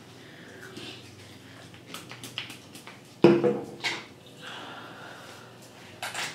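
Close handling sounds as hands work a section of wet hair: a few soft clicks and rustles, a sudden loud thump about three seconds in, and another short rustle near the end.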